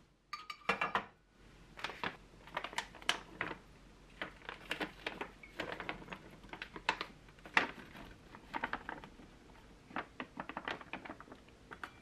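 A pot set down on a gas stove's grate with a short clatter about half a second in, then frozen blueberries poured from a bag, rattling into the pot as a long run of irregular hard clicks.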